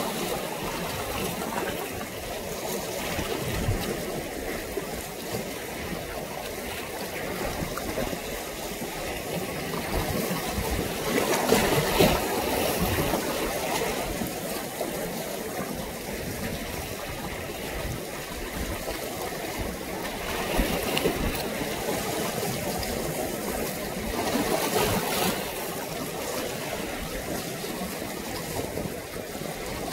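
Sea water lapping and washing with small waves, louder in swells about twelve seconds in and again past the twenty-second mark.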